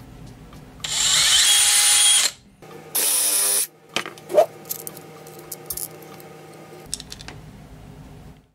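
Power drill/driver running in two short bursts, the first about a second and a half long and the second about half a second, followed by a few light clicks.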